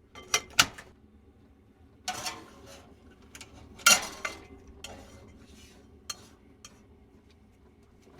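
Dishes and cutlery being handled, a handful of sharp clinks and clatters. The loudest come about half a second in and about four seconds in.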